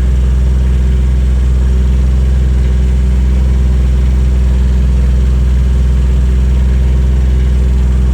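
A car's engine running at a steady pitch, a loud even low drone that neither rises nor falls.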